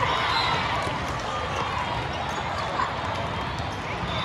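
Volleyballs bouncing and thudding on a gym floor amid the steady chatter of players and spectators, with one sharper thud about three seconds in.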